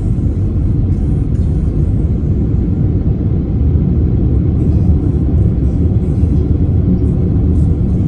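Steady low road rumble of a car cruising on a highway, heard from inside the cabin: tyre and engine noise.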